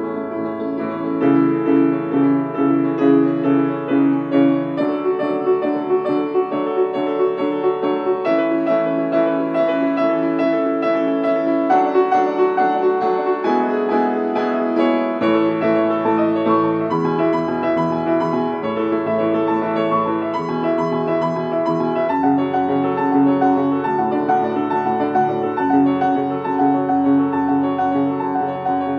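Background piano music, its chords changing every few seconds.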